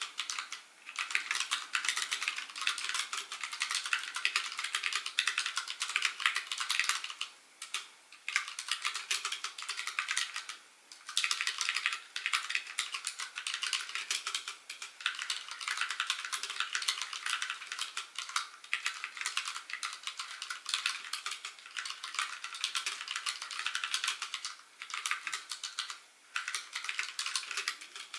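Dense, rapid clicking and tapping that runs on almost without a break, pausing briefly a few times.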